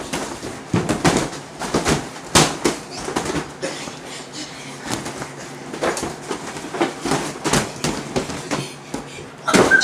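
Inflatable vinyl boxing gloves thumping irregularly against each other and against the fighters in a flurry of punches.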